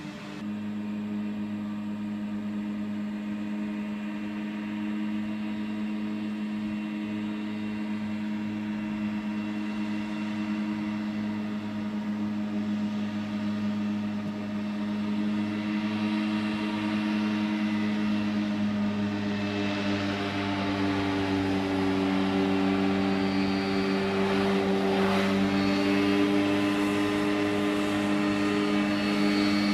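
Hovercraft engine and fan droning steadily across the water, getting louder as the craft comes closer. Its pitch wavers and a rushing noise rises with it in the last third.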